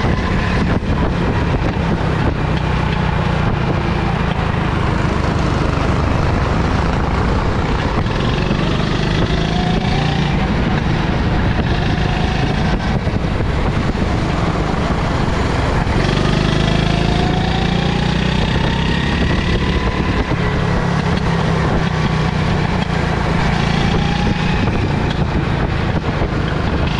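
Rental go-kart engine running under the driver, its note rising and falling with the throttle and climbing in several sweeps as the kart accelerates, over a steady rushing noise.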